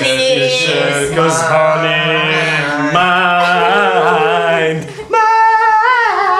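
A man singing long, wavering held notes without clear words, over a steady low accompaniment, with a brief break a little after five seconds.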